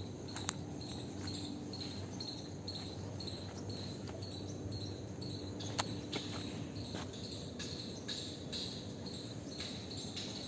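Insects chirping steadily, about two chirps a second, over a low steady hum, with a couple of sharp clicks.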